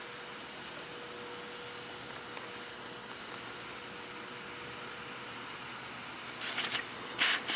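Vacuum cleaner running with a steady whine and hiss as its floor nozzle is drawn along a freshly sawn concrete control joint, sucking out the cutting dust. About six and a half seconds in it turns into a louder rushing hiss.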